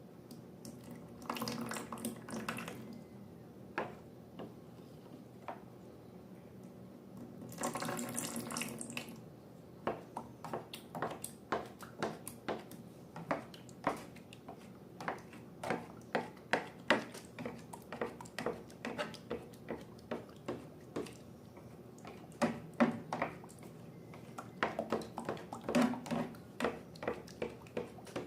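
Liquid pouring in two short bursts, then a long run of sticky, wet clicks and squelches as slime is mixed.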